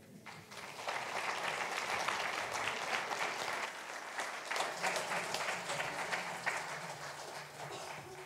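Congregation applauding. The clapping builds over the first second, holds steady, and tapers slightly near the end.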